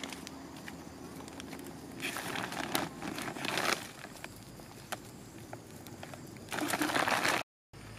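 Rustling and scraping in a few short bursts, the loudest near the end.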